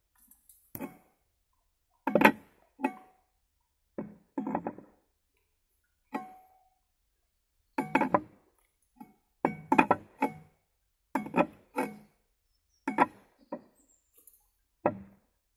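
Steel pry bar knocking and levering against the lip of a bent wheel rim while it is being straightened: irregular metallic clanks and clinks with a short ring, coming in little clusters every second or two.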